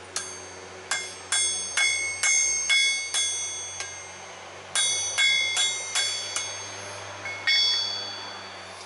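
Hammer blows on steel at an anvil, each strike ringing like a bell at the same pitch. About nine quick blows, a short pause, five more, then two near the end.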